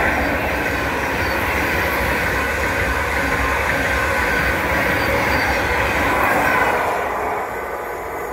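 A train passing the platform: a loud, steady rush of wheel and running noise that starts to fade about seven and a half seconds in.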